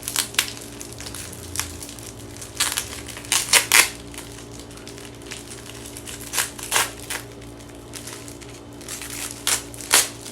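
Plastic wrapping of a convenience-store rice ball crinkling and being crushed in the hands, in several short sharp bursts.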